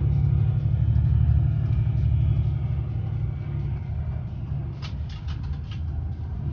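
Coach engines running with a steady low rumble. Several sharp clicks come about five seconds in.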